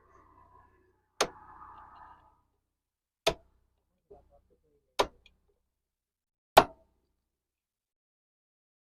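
Four sharp strikes spaced a second and a half to two seconds apart, the last the loudest, with a brief scrape after the first: lock-washer tabs being knocked over against a freshly tightened nut in a TVS Ntorq 125 scooter's engine so that it cannot work loose.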